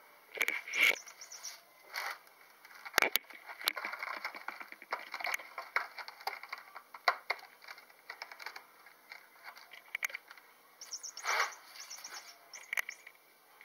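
Electronic play-and-squeak blue jay cat toy giving off short bird-like chirps and squeaks in irregular bursts as a cat bats at it, mixed with scuffs on the floor and a sharp knock about three seconds in.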